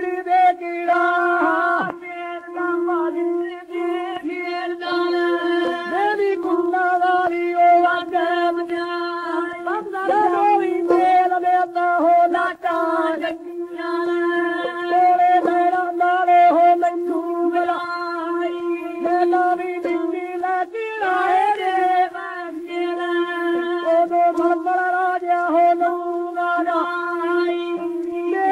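Punjabi folk singing played from an old 78 rpm shellac record. A voice bends and breaks over a steady held drone.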